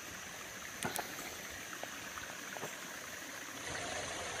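A shallow brook running with sewage overflow water trickles steadily over rocks and debris. There are a couple of small clicks about a second in, and the flow is a little louder near the end.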